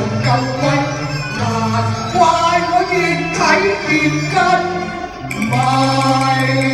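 Live singing through stage microphones over instrumental backing music with a steady bass line.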